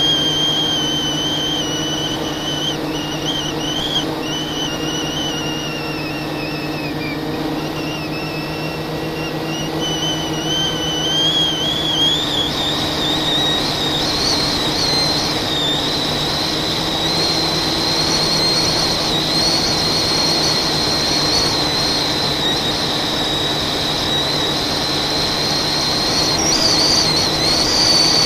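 FPV quadcopter's brushless motors and propellers whining, the high pitch wavering with throttle: it dips a little, then climbs about a third of the way in and holds higher, over a steady rush of propeller wash and air.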